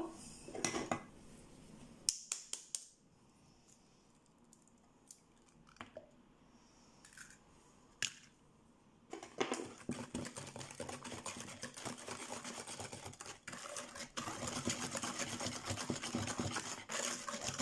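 Wire whisk beating cake batter by hand in a plastic mixing bowl: a fast clattering and scraping that starts about halfway through and gets louder near the end, as the second egg is beaten into the creamed butter and sugar. Before it, a few light taps and clicks.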